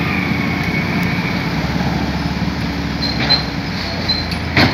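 Sany crawler excavator's diesel engine running as the machine travels on its steel tracks, a steady low drone with track clatter. A sharp clank sounds near the end.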